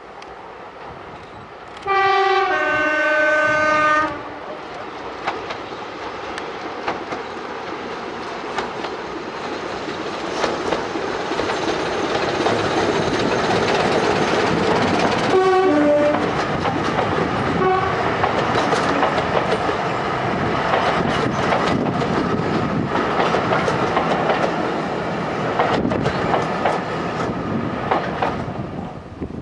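Diesel locomotive sounds its two-tone horn, a higher note then a lower one, about two seconds in. The train then passes close by, diesel engines running and coach wheels clicking over the rail joints. There is another short two-tone horn blast about halfway through.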